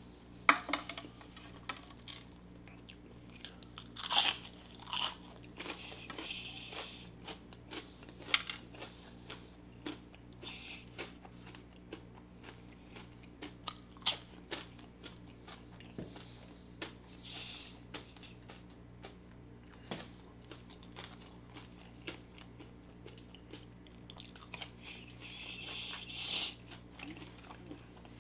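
Close-up mouth sounds of biting and chewing crispy Popeyes fried chicken: sharp crunches of the breading, loudest near the start and about four seconds in, then scattered quieter chewing crunches and smacks.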